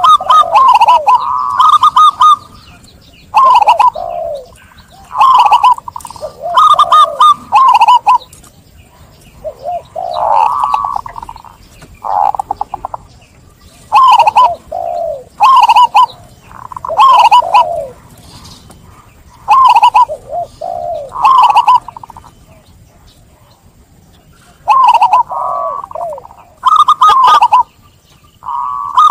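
Zebra doves (perkutut) in full song: short, rolling cooing phrases, repeated every second or two with a few brief pauses.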